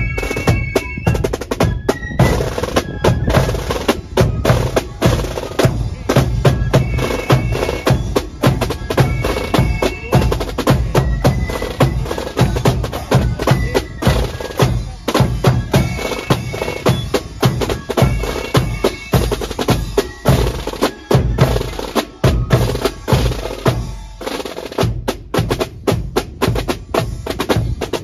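A marching band's rope-tension snare drums and bass drum playing a marching beat, with snare rolls.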